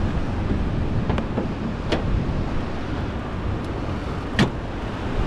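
Wind rumbling on the microphone, with a few sharp clicks or knocks; the loudest comes a little over four seconds in.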